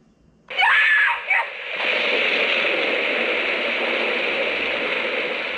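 Sound box of a Lost Kate figure diorama playing a sound clip through its small speaker. A short, loud vocal sound about half a second in is followed by a steady rushing noise.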